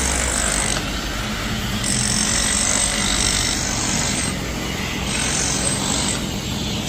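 Steady machinery noise with a low hum, and a high hiss that comes and goes about three times.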